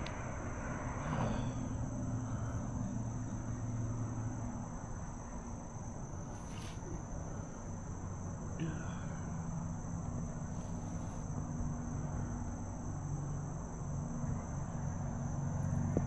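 Steady outdoor ambience: a continuous high-pitched insect drone, typical of crickets, over a low steady hum, with faint distant voices.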